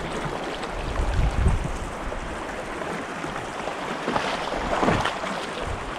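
Shallow mountain stream running over rocks, a steady rushing wash of water, with a few low rumbles of wind on the microphone about a second in.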